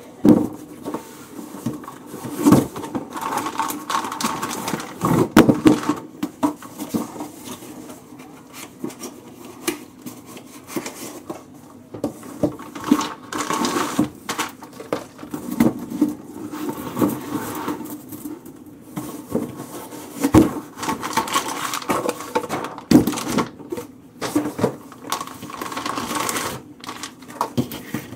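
Cardboard chain boxes being handled and opened, and steel Morse Hy-Vo transfer case chains clinking and rattling as they are pulled out and laid on a table, with many irregular sharp clicks.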